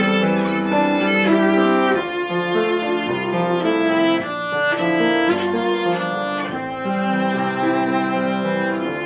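Viola played with the bow in long held notes over a piano accompaniment.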